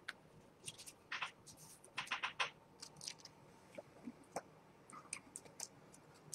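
Faint, irregular clicks and rustles of trading cards being slid and flipped through by hand, a small cluster of them about a second to two and a half seconds in.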